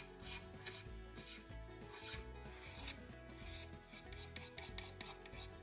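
Hand-sanding a hickory axe handle: a small piece of sandpaper pinched in the fingers rubbed along the wood in rapid, uneven strokes, faint.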